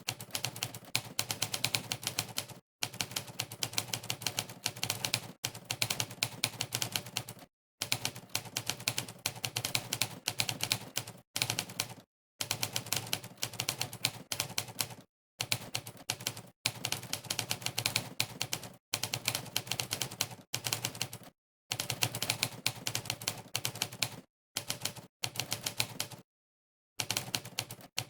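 Typewriter keystroke sound samples, one per keypress, from a typing-test site's 'typewriter' sound setting. They come as fast runs of clacking keystrokes lasting a second or two each, broken by brief dead-silent pauses.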